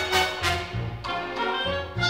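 Broadway pit orchestra playing an instrumental passage, brass and strings over a pulsing low line, from a 1954 original cast recording.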